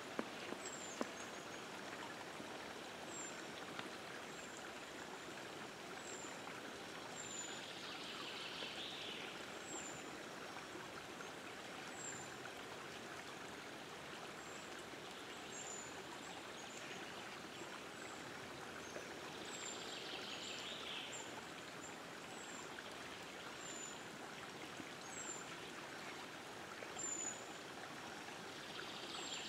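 Outdoor meadow ambience: a faint, steady rushing noise, with a short high bird call repeating about once a second and a brief warbling bird phrase three times.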